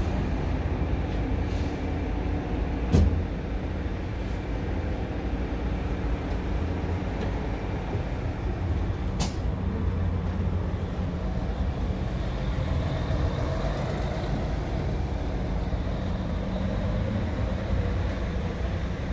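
Scania R tractor unit's diesel engine idling steadily, with a sharp knock about three seconds in and a brief high click a few seconds later.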